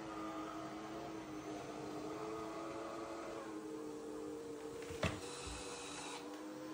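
Dreame X40 Ultra robot vacuum-mop running while mopping: a steady motor hum with a couple of held tones. A single sharp click comes about five seconds in.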